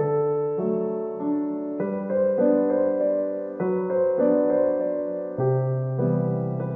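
Background piano music: held piano notes and chords following one another at an even pace.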